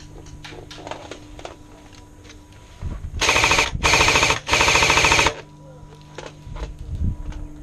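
Automatic airsoft gun firing three short full-auto bursts in quick succession, a little past the middle, with fainter scattered shots and clicks around them.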